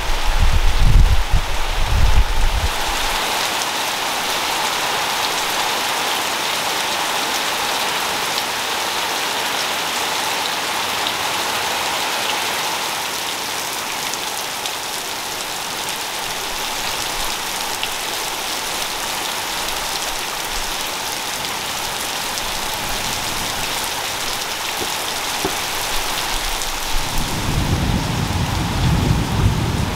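Heavy rain falling steadily. A low, uneven rumble sits under it in the first couple of seconds and comes back near the end.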